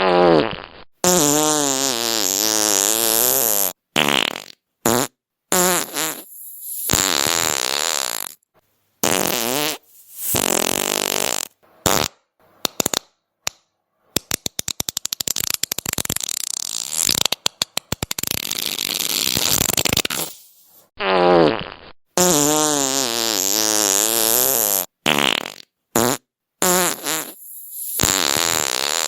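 A string of fart sounds, one after another with short silent gaps. Some are long with a wobbling pitched tone, others are short, and in the middle there is a long run of rapid pops.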